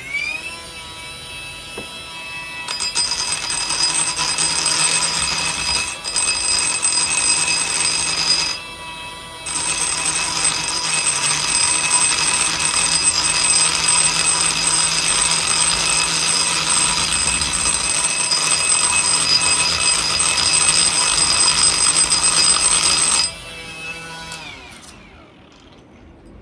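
INGCO electric die grinder running with a high-pitched whine, spinning up at the start. From about three seconds in it grinds metal, louder and harsher, with a short break near nine seconds. It spins down near the end.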